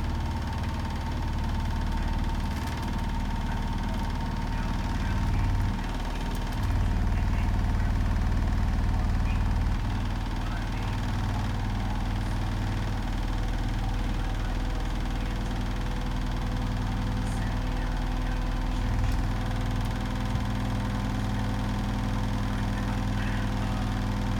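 Hotpoint WMFUG 942 washing machine running on its Cotton 60 programme: a steady low motor hum and drum rumble with a faint whine. It gets a little louder for a few seconds near the middle.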